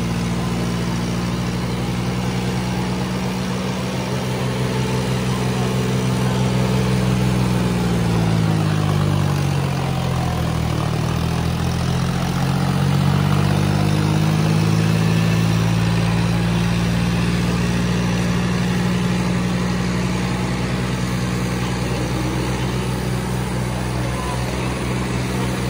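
Tractor diesel engines, John Deere and Kubota, labouring under full load in a tractor-pulling contest, front wheels reared off the ground. A steady low engine note runs throughout. Around the middle, one engine's pitch drops while another rises, the two notes crossing before settling into a steady drone again.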